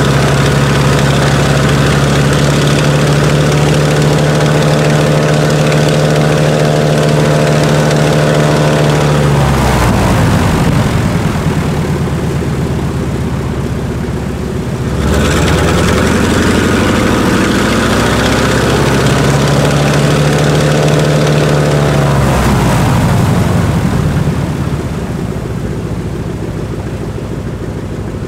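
Lisunov Li-2's Shvetsov ASh-62IR nine-cylinder radial engines running on the ground, propellers turning. The engine note is steady, then drops in pitch about ten seconds in and rises again about five seconds later. It holds there, then falls once more near the end, ending quieter.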